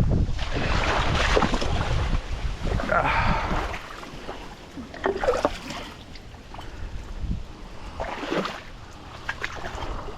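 Water splashing and sloshing around a kayak, with scattered knocks. Wind rumbles on the microphone for the first few seconds.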